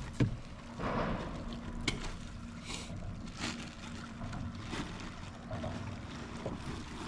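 Scattered light knocks and short rustles of gear being handled aboard a kayak, over faint wind and water noise.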